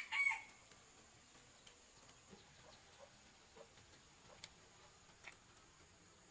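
A rooster's crow ends in the first half second. Then comes a low background with a faint steady high-pitched tone and scattered soft ticks.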